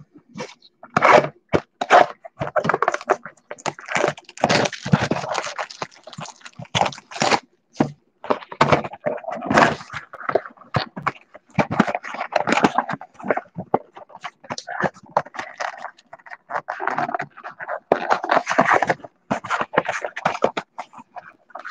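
Cardboard trading-card box being handled and its flap worked open: irregular scraping, rustling and crackling of the cardboard, with many short sharp scrapes.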